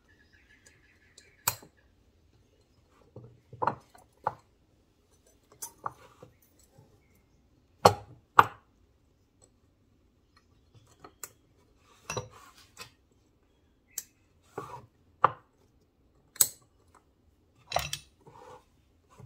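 Steel gearbox parts (a synchro hub with its keys and synchro rings) being handled and fitted: irregular sharp metal clicks and clinks, with two louder knocks close together about eight seconds in.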